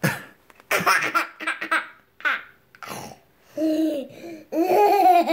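Toddler laughing hard: short choppy bursts of giggling, then longer, held laughs in a high voice near the end.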